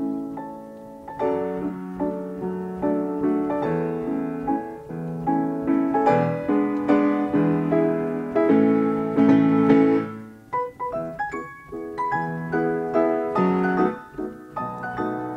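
Upright Ampico reproducing piano playing a paper music roll: a lively piece with bass notes under full chords, swelling louder in the middle and dipping briefly about ten seconds in before carrying on.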